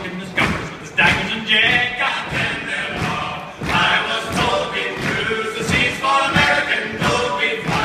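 A group of men singing an Irish song together in chorus at one microphone, heard live in a concert hall, over a steady thudding beat about twice a second.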